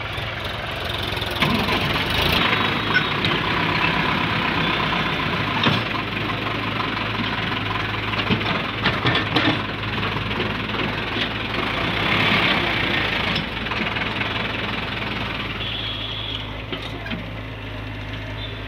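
Diesel engines of a farm tractor and a Hyundai excavator running steadily while the excavator loads soil into the tractor's trolley, with scattered knocks and clatter and a few louder stretches.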